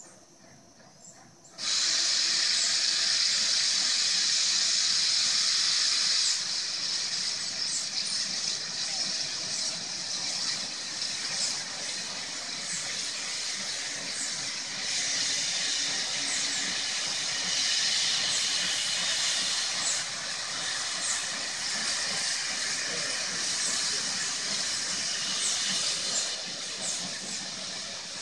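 Strasburg Rail Road No. 90, a 2-10-0 Decapod steam locomotive, venting steam in a steady hiss that starts suddenly about two seconds in, eases a little after about six seconds and goes on with uneven swells.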